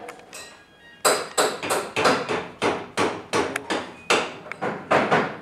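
Hammer blows on a metal part of a disassembled rotary hammer: a quick run of about fifteen sharp strikes, three or four a second, each with a short metallic ring. The run starts about a second in and stops just before the end.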